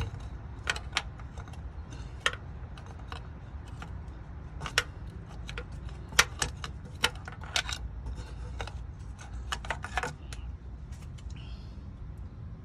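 Irregular light clicks and taps as a crankshaft position sensor is wiggled side to side to work it out of the engine block, over a steady low hum.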